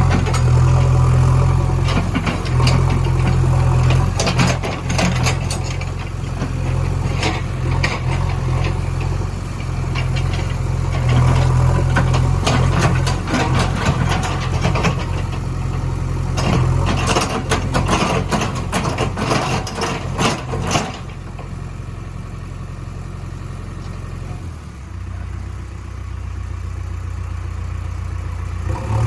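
Heavy machinery's diesel engine running steadily, with repeated clattering and knocking for most of the time, then settling to a quieter, plain idle about two thirds of the way through.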